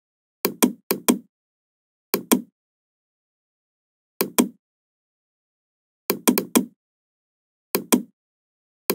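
Computer mouse clicking: about seven short clicks spread unevenly, each a quick double snap of press and release, with dead silence between.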